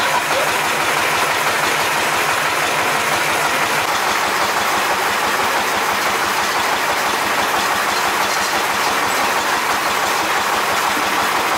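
Small single-cylinder Changwu diesel engine running steadily, driving a belt-driven wet-grinding mill.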